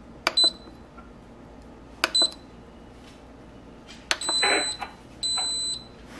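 Instant Pot Duo Crisp control panel beeping as its buttons are pressed to set a 5-hour low slow-cook program. There are two short high double beeps about two seconds apart, a brief scuffing noise around four seconds in, and a longer steady beep near the end as the program is started.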